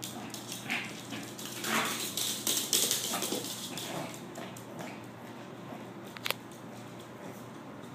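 A toy poodle playing rough with a stuffed toy on a wooden floor: irregular scuffling and short dog noises, busiest over the first few seconds, with a sharp click about six seconds in.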